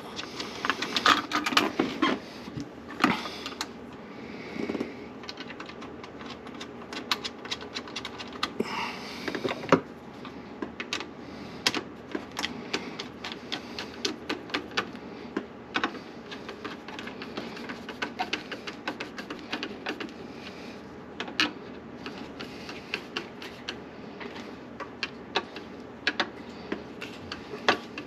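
Irregular small clicks and taps of metal and plastic parts being handled while a garbage disposal's mounting is fitted with screws, busiest in the first few seconds.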